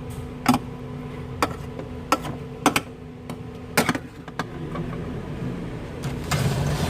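Kitchenware knocking and clinking about six times at irregular intervals over a steady low hum, with a rush of noise swelling near the end.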